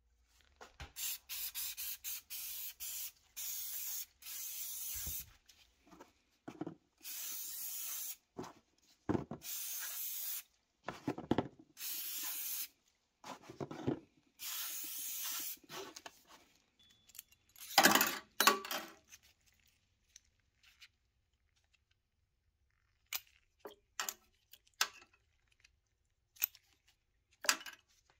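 Aerosol can of Mothers Back-to-Black trim and plastic restorer spraying in a series of hisses: several quick short squirts, then longer bursts of about a second each. About two-thirds through comes a louder clatter of knocks, the loudest moment, followed by a few scattered clicks.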